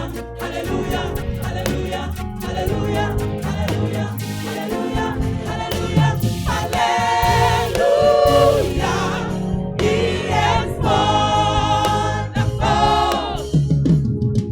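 Gospel choir singing with musical accompaniment. From about six seconds in, long held notes with vibrato.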